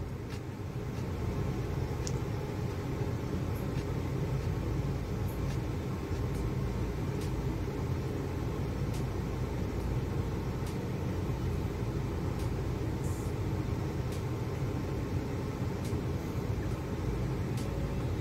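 Steady low background hum and noise, with a few faint clicks scattered through it.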